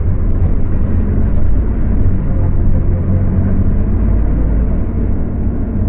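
Scania K250UB city bus's rear-mounted diesel engine running under way, heard from inside the bus as a loud, steady low drone.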